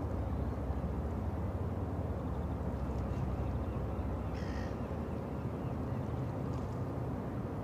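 Steady low rumble of the ro-ro cargo ship MV Eddystone under way at close range. A bird gives one short harsh call about four and a half seconds in.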